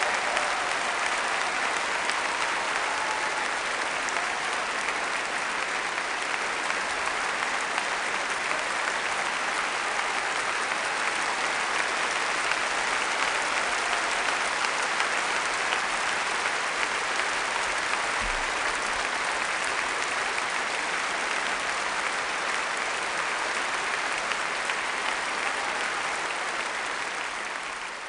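Large audience in a hall applauding at length, an even clatter of many hands clapping that fades out near the end.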